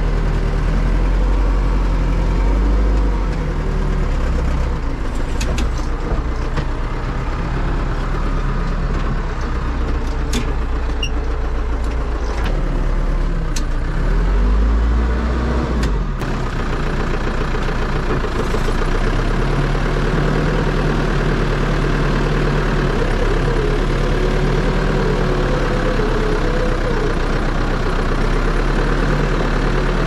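Diesel engine of a New Holland HL95B backhoe loader running steadily, heard from inside the cab. Its pitch rises and falls as the machine works. Several sharp knocks come through in the first half.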